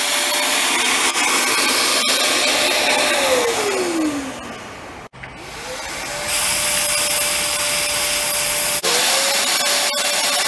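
Ridgid wet/dry shop vacuum running, with a steady motor whine over rushing air as it sucks a string-pulling mouse through underground conduit. The whine winds down about three to four seconds in, then spins back up about six seconds in and holds steady.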